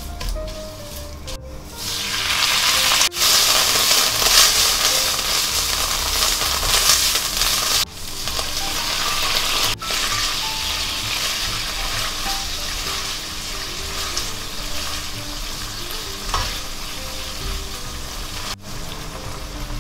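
Red curry paste sizzling as it is stir-fried in hot oil over medium heat in a nonstick pan, with a spatula stirring it around. The sizzle swells about two seconds in and eases a little after about eight seconds.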